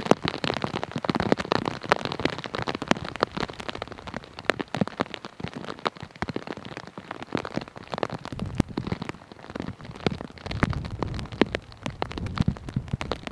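Steady rain, with many sharp, irregular taps of raindrops striking a rain cover close to the microphone.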